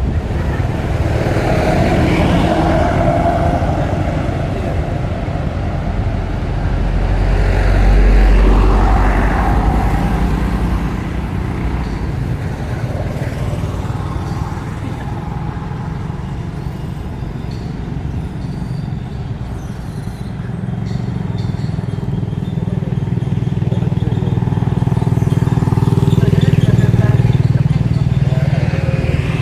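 Motor vehicles running on a road nearby, a steady low engine rumble that swells twice as traffic passes, with faint voices.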